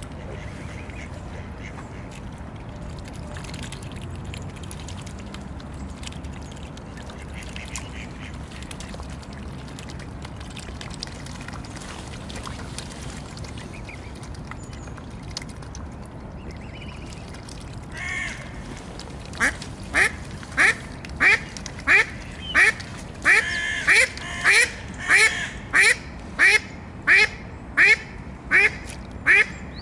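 Mallard quacking loudly in a steady run of about two quacks a second, starting about two-thirds of the way in. Before that, only a low steady background rumble with a few faint calls.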